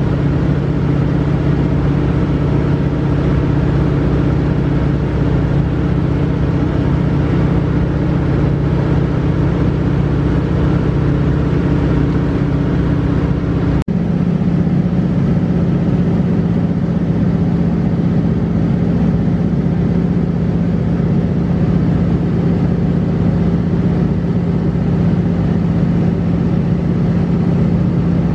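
De Havilland Beaver floatplane's engine running steadily in cruise, heard inside the cabin as a loud, constant drone. About halfway through, the drone's pitch changes abruptly.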